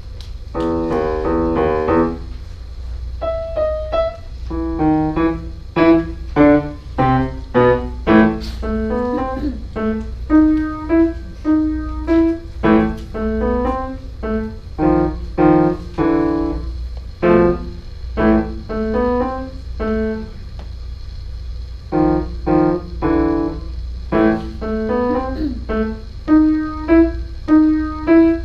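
Solo piano playing a piece in short, detached notes and chords with brief gaps between them, opening with a quickly repeated chord.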